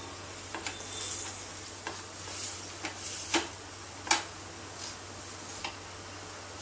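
Paneer-stuffed paratha sizzling in oil in a nonstick frying pan, with a steel slotted spatula tapping and scraping against the pan as the paratha is pressed down and turned. About eight sharp taps, the loudest about four seconds in.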